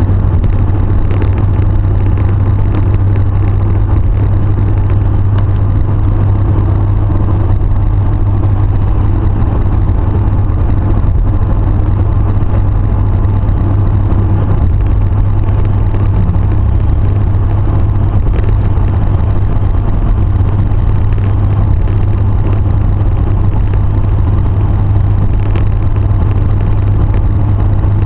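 A car driving steadily, heard from inside the cabin: a continuous low drone of engine and road noise with an even hiss of tyres and air.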